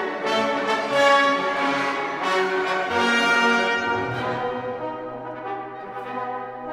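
Orchestral music with brass, French horns prominent, playing sustained chords; a low held note enters about four seconds in.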